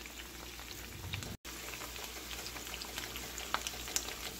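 Sauce-coated fried chicken pieces sizzling in a pan: a soft, steady hiss with scattered small crackles, cut by a brief moment of total silence about a second and a half in.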